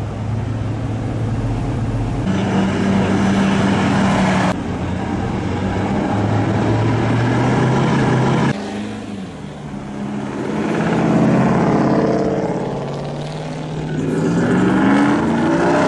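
Lifted pickup trucks' engines running as they cruise past in slow traffic. The sound changes abruptly a few times. In the second half, the engine notes fall and rise in pitch as the trucks drive by and speed up.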